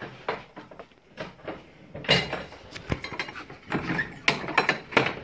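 A run of clicks, knocks and rattles from things being handled and moved, busier and louder from about two seconds in.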